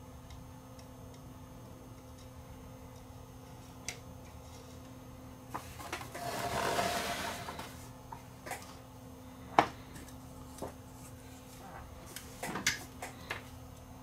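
Handling noise on a workbench: the plastic-cabinet CRT television set scrapes as it is slid and turned around for about two seconds, followed by scattered sharp knocks and clicks, the loudest a little after halfway and a cluster near the end, over a faint steady hum.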